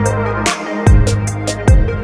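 Electronic background music with a beat: deep kick drums that drop in pitch, and sharp higher percussion hits.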